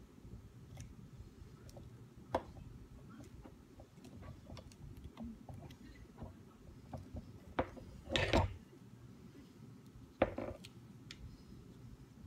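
Small metal bow parts and tools being handled on a work surface: scattered light clicks and taps, a few sharper knocks, and a short louder rattling scrape about eight seconds in.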